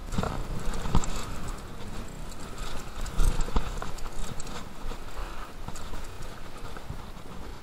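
Mountain bike running down a rough dirt trail: tyres rumbling over the ground with repeated irregular clattering knocks from the bike, the loudest about a second in and about three seconds in.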